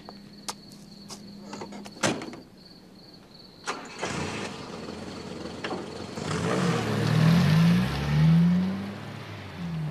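A car door shuts with a knock about two seconds in, over a steady chirping of crickets. About four seconds in a car engine starts, then revs up several times, each rev rising in pitch.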